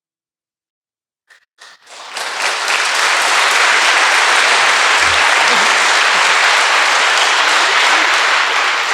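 Audience applauding: after a moment of silence, a couple of single claps, then full applause from about two seconds in that holds steady.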